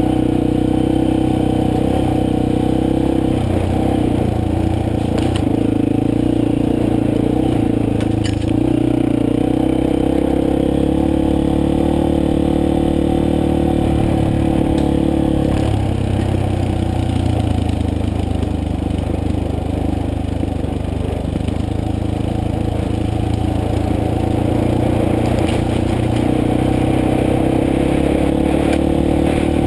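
Motorcycle engine running steadily while riding, its note shifting about halfway through, with a few faint knocks.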